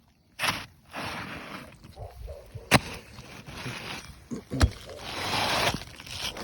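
Asphalt roof shingle being pried and lifted: rough scraping and crackling with shedding granules, and two sharp knocks about a third and two-thirds of the way through.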